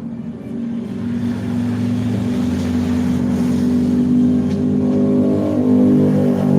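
Bus engine running with a steady low hum, growing louder through the first few seconds and holding near full volume to the end.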